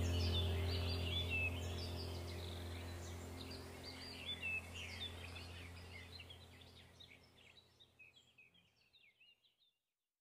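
Soundtrack of birds chirping over a low steady hum, fading out gradually until it is gone about seven seconds in.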